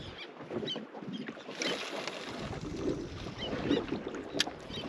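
Water lapping against a small boat's hull, with wind on the microphone and one sharp click about four and a half seconds in.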